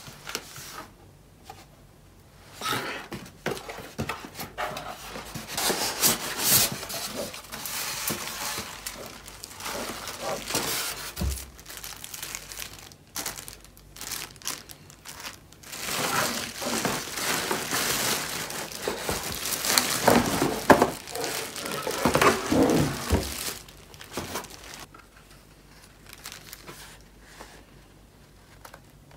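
Plastic wrapping and cardboard packaging rustling and crinkling in irregular handfuls as a new air fryer oven is unpacked. The rustling dies down near the end.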